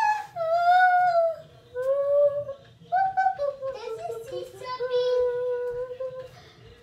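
A child singing a slow tune with long held notes, without clear words, trailing off near the end.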